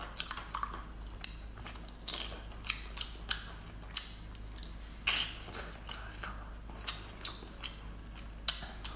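A person biting and chewing a whole cooked octopus with an ink-filled head: irregular short wet mouth clicks and smacks, a few louder ones about a second apart.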